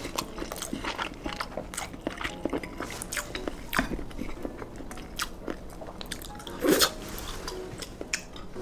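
Close-up eating sounds: a person biting and chewing garlic fried rice, with many small irregular crunches and clicks. One louder, fuller sound comes about two-thirds of the way through.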